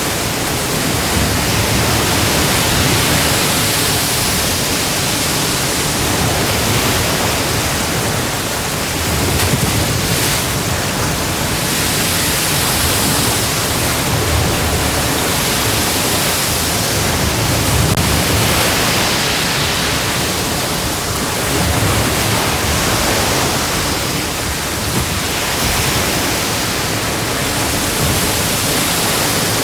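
Atlantic Ocean waves breaking and washing on a shore, a continuous loud rush that swells and eases every few seconds.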